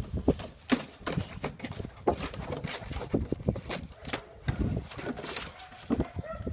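Lithuanian hound puppy biting and shaking a white plastic bag on grass: a rapid, irregular run of plastic crinkling and rustling, with knocks as it tugs at it.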